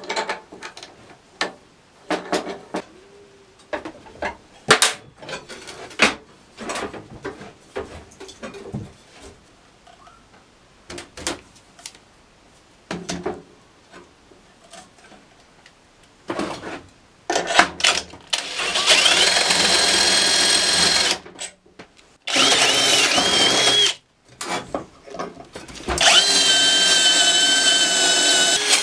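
Workshop knocks and clicks of parts being handled, then an electric power tool run in three bursts with a high whine, the last running to the end.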